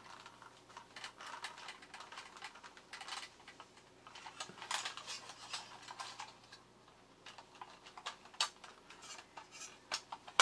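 Light metal clicks, taps and short scrapes from the sheet-metal body of a tin toy robot being handled while its bent-over tabs are pried up, with a few sharper clicks near the end.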